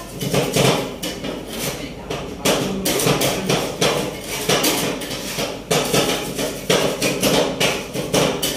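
Two metal spatulas chopping and mashing ice cream mix on the frozen metal plate of a rolled-ice-cream cold pan. Their blades strike the plate in rapid, uneven clacks, several a second.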